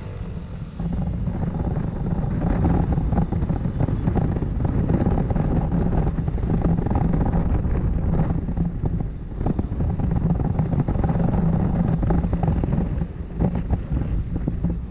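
Yamaha NMAX scooter's single-cylinder engine running under way, under heavy wind noise buffeting the action-camera microphone. The sound swells about a second in and stays steady.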